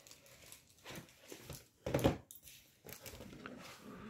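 Cardboard gift box and paper being handled, with scattered rustles and scrapes and one short, louder thump about two seconds in.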